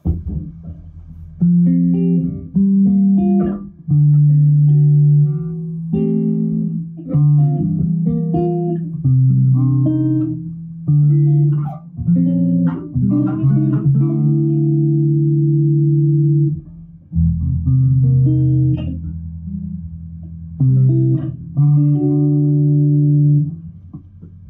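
Six-string electric bass played through an Ampeg bass amp: a slow melodic passage of held notes and chords, fingerpicked rather than slapped.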